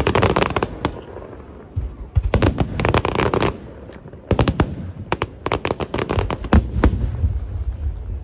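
Aerial fireworks shells bursting overhead: clusters of sharp bangs and cracks in quick succession, over a steady low rumble.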